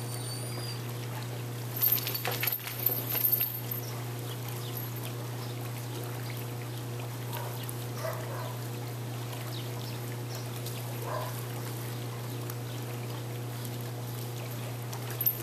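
Water splashing as a dog swims in a pool, loudest in a burst of splashes about two seconds in, over a steady low hum. A dog gives a few faint whines later on.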